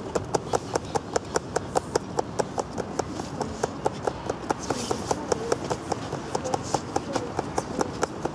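Fast, even clicking or tapping, about four or five sharp taps a second, keeping a steady rhythm throughout.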